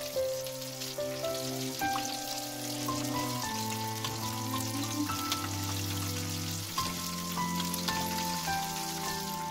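Swiss chard balls frying in hot oil, a steady dense sizzle with fine crackles, under background music of slow, held melodic notes.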